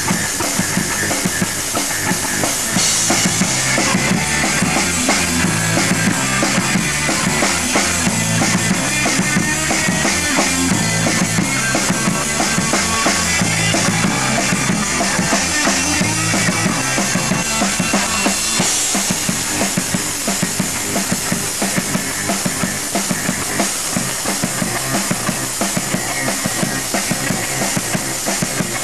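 Live rock band playing: electric guitar, bass guitar and a drum kit with a steady beat and busy cymbals. The cymbal wash eases a little about two-thirds of the way in.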